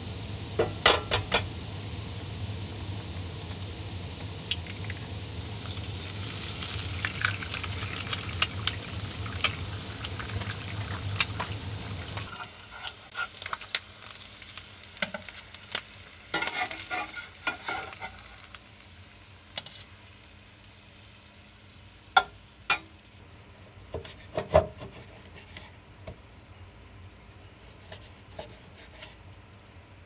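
Egg frying in a cast-iron skillet, a steady sizzle with sharp clicks and scrapes of a spatula against the pan. The sizzle cuts off sharply about 12 seconds in, leaving scattered taps and clicks of utensils.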